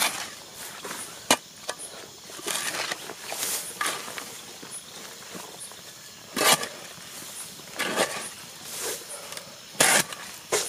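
Irregular scraping strokes of a hand digging tool cutting into the ground, about eight in all, each a short gritty scrape.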